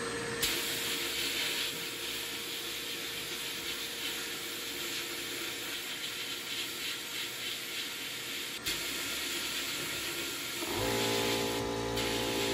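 Sandblast cabinet's blast gun hissing steadily with compressed air and abrasive media, blasting a hand drill's gear and frame. Music comes in near the end.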